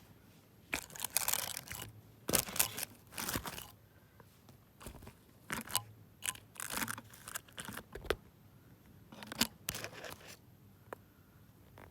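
Close handling noise: irregular bursts of crinkling, crunching and scraping, about a dozen short bouts spread over several seconds.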